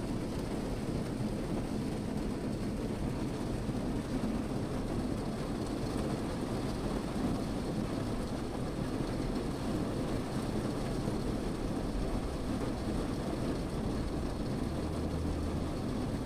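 Steady rain falling on a car, heard from inside the cabin as an even, low-pitched patter.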